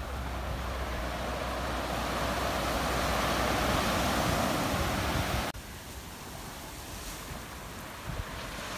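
Surf breaking and washing up a sandy beach, swelling to its loudest about four seconds in. It then cuts off abruptly to a quieter, steady wash of waves, with wind on the microphone.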